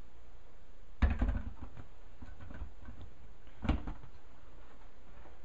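Handling sounds from a glass blender jar with its plastic lid: a dull knock about a second in followed by a few light clicks, then a second knock near four seconds.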